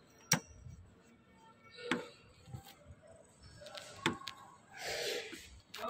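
Hand tools clinking against metal engine parts during timing-chain work on a Maruti Suzuki Swift engine: a few scattered sharp clicks, the loudest just after the start, then a short rustle near the end.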